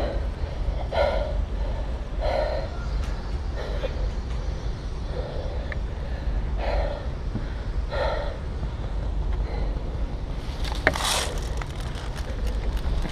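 Steady low rumble of movement and handling noise on a body-worn camera, with soft sounds recurring about every second and a half. About eleven seconds in there is a single sharp click with a short hiss, like an airsoft gun firing.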